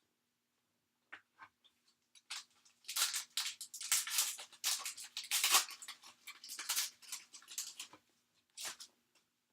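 A trading card pack's foil wrapper being torn open and crinkled: a dense crackling for about five seconds, with a few light clicks before it and one more near the end.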